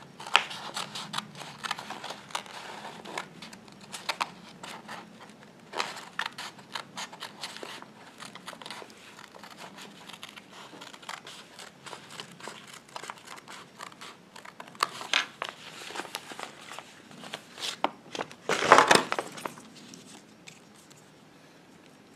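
Scissors snipping through thick embossed wallpaper, with the paper crinkling and rustling as it is turned between cuts; the loudest crinkling comes a few seconds before the end.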